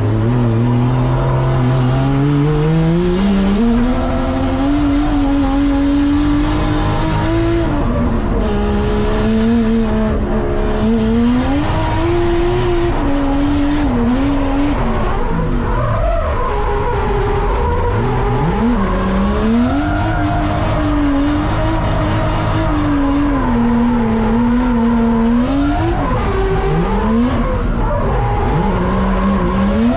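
A drift car's engine revving up and down again and again under heavy throttle, with tyres squealing as the car slides.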